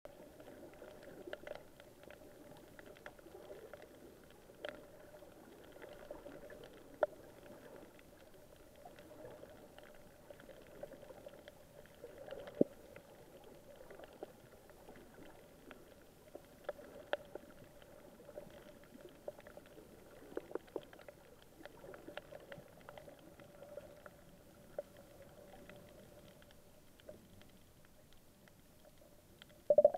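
Underwater sound of a coral reef heard through an action camera's waterproof housing: a faint steady hum with scattered clicks and knocks, and a louder knocking just before the end.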